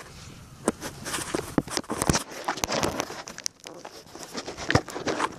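Close rustling and irregular crackling clicks as a camera is pushed through dry grass and hanging roots into a kiwi burrow entrance, the grass and roots brushing against it.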